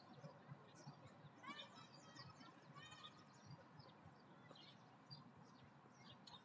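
Small songbirds chirping and singing faintly, several voices overlapping, with a quick run of repeated notes around the second and third seconds, over a low background rumble.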